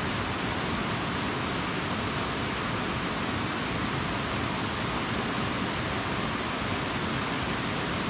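Steady, even rush of water from a cascading mountain stream.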